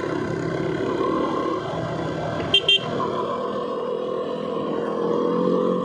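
KTM RC motorcycle running at steady road speed, with two quick beeps of a vehicle horn about two and a half seconds in.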